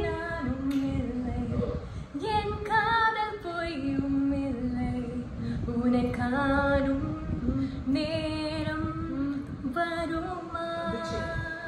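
A woman singing a song unaccompanied, in long held notes that step up and down in pitch.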